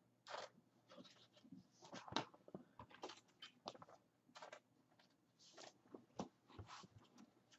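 Faint, scattered clicks and rustles of something being handled, over near silence.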